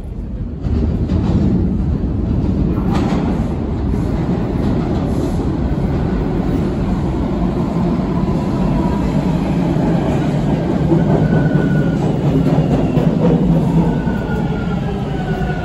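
TTC Line 2 subway train of T1 cars pulling into the station: a loud, steady rumble of wheels on rails that sets in about a second in, with a faint whine near the end.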